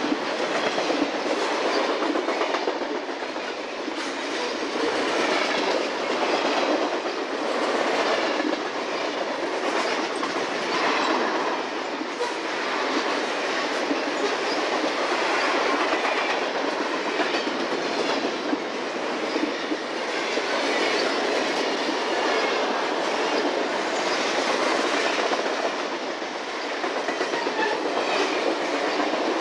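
Freight train cars rolling past close by: steady steel-wheel-on-rail noise with the repeated clickety-clack of wheels crossing rail joints.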